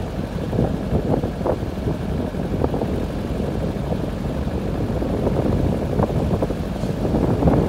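Wind buffeting the phone's microphone: a loud, continuous low rumble that rises and falls with the gusts.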